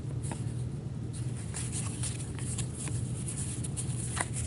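Trading cards being flipped through by gloved hands, with scattered soft flicks and rustles of card stock over a steady low hum.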